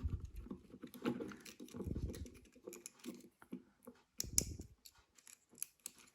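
Light clicks and taps of small plastic doorbell parts being handled and fitted together, with a duller knock about four seconds in.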